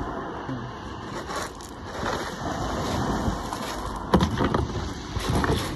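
Wind rumbling over the microphone with surf washing on shingle, and a few short knocks and scrapes of gear being handled on a plastic fishing kayak, the loudest about four seconds in.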